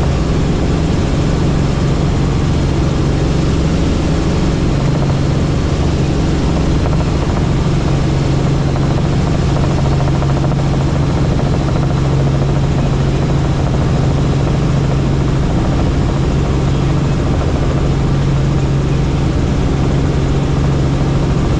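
Helicopter in flight: a loud, steady drone of engine and rotor with a strong constant low hum.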